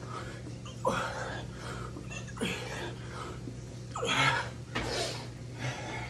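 A man's heavy, forceful breathing during push-ups: sharp gasping exhales, each dropping in pitch, about every second and a half. A steady low hum runs underneath.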